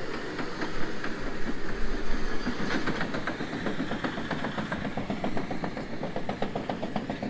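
Caterpillar D6 crawler bulldozer at work smoothing a pad of earth: its engine runs steadily under a rapid, even clatter of its steel tracks, clearest in the second half.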